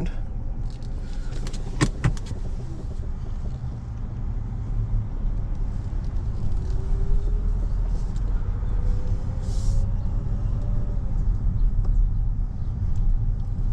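Hyundai Elantra engine running as the car is driven slowly up onto a flatbed tow truck's bed, with a couple of sharp clicks about two seconds in and a faint slowly rising whine in the middle.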